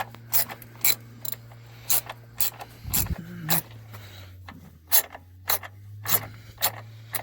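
A socket ratchet clicking as it turns a 17mm oil drain plug back into the oil pan, with sharp clicks about two a second at an uneven pace, over a low steady hum.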